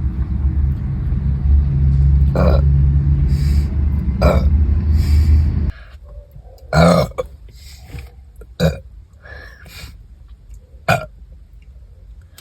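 A woman's long, low burp that stops abruptly a little under six seconds in, followed by three short, separate sounds about two seconds apart.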